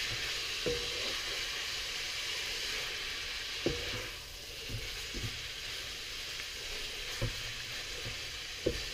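Vermicelli noodles sizzling in a hot wok as a wooden spatula stirs and tosses them, with a few brief knocks of the spatula against the pan.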